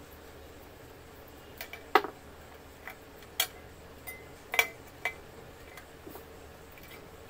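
Handling noises from wiring work inside a fan's metal motor housing: a handful of sharp clicks and light clinking knocks, the loudest about two seconds in, with others around three and a half, four and a half and five seconds.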